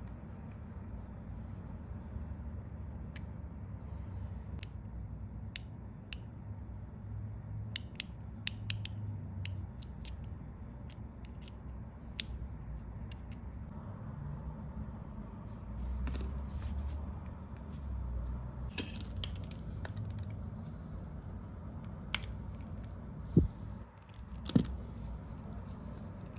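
Scattered light clicks and taps of hand tools and small metal parts being handled while a small air compressor is taken apart, over a steady low hum. Near the end come a few sharper knocks.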